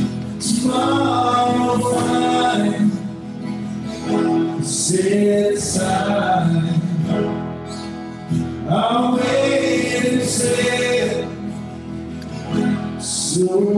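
A worship song: a voice singing phrase by phrase to strummed acoustic guitar.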